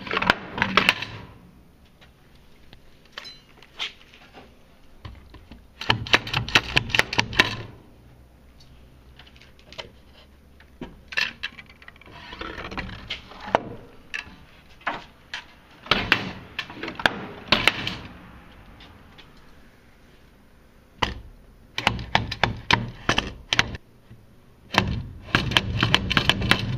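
Wooden sliding coop door and its hinge latch knocking and rattling, in repeated bursts of rapid clicks a few seconds apart.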